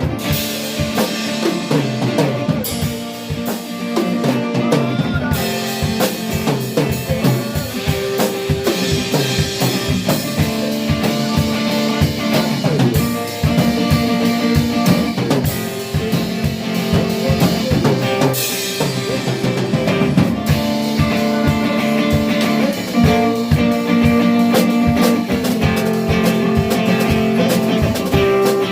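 Live band music: a drum kit playing a busy steady beat with guitar over held chords.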